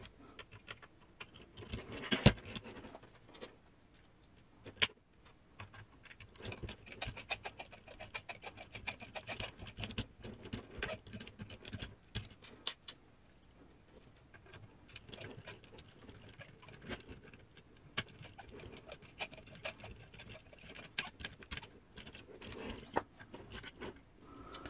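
Small screws being turned with a hand hex driver into the metal chassis rails of a 1/10 RC crawler kit, with scattered clicks and light metal clinks as parts and tool are handled. There are a couple of louder knocks, about two seconds in and again near five seconds.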